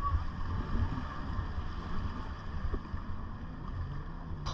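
Jet ski engines running steadily near the shore, with wind buffeting the microphone.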